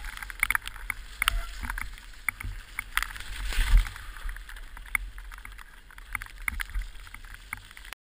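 Orange 223 downhill mountain bike clattering and rattling over a rough, wet trail, with sharp knocks, tyres running through mud and a heavy thump about three and a half seconds in. The sound cuts off abruptly near the end.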